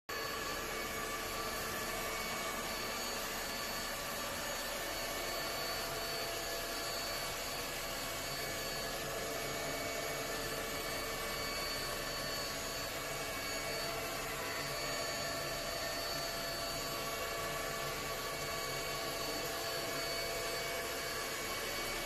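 ILIFE Shinebot W450 robot mop running as it drives across a hard floor: a steady motor whir with a constant high whine over it.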